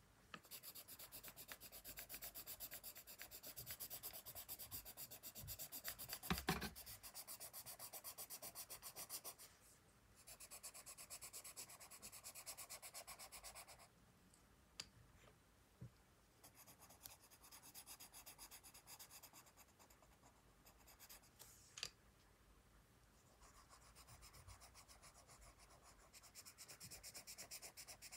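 Coloured pencil shading on sketchbook paper in fast back-and-forth strokes, faint, in several runs with short pauses between. There are a few light knocks, the loudest about six seconds in.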